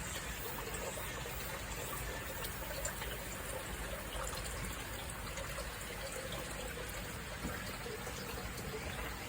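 Hot-spring water pouring steadily into a private open-air onsen bath, a continuous trickling splash on the water's surface.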